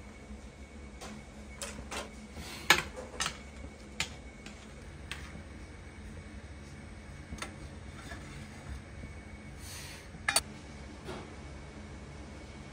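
Cooking utensils clink against a large aluminium stockpot in a few sharp, scattered knocks, the loudest about three seconds in, as scum is skimmed off the simmering dashi. A steady low hum runs underneath.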